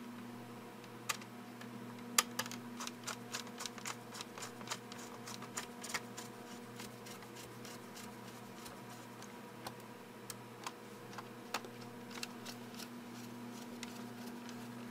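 Small screwdriver turning the keyboard screws into the underside of an HP EliteBook 8770w laptop: scattered light clicks and ticks of the driver tip and screws, busiest in the first half and sparse toward the end, over a steady faint hum.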